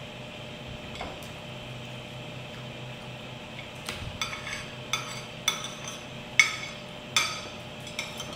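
Metal cutlery clinking and scraping against a plate. The first half is quiet, then about seven sharp, ringing clinks come in the second half, over a steady low hum.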